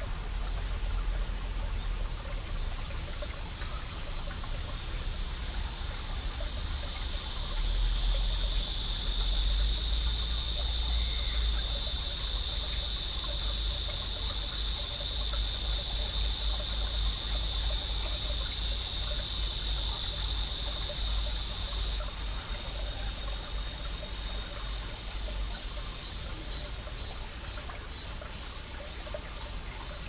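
Cicadas singing in a steady, high, droning chorus that swells over the first few seconds, runs loud, then cuts off suddenly about two-thirds of the way through; a different, higher-pitched cicada starts up near the end. Underneath, a mountain stream trickles over rocks.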